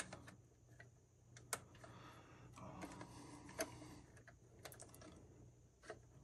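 Faint scattered clicks and soft rustling of plastic toilet fill valve parts being handled and fitted together by hand.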